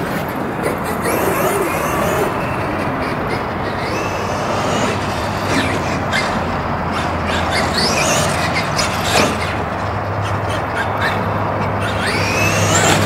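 Brushless electric RC off-road car lapping a dirt track: its motor whine rises and falls with the throttle several times over a steady rushing noise.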